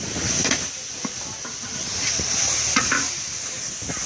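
Metal spatula stirring and scraping a paste frying in oil in a large wok: a steady high sizzle, with a scrape of the blade against the pan every second or so.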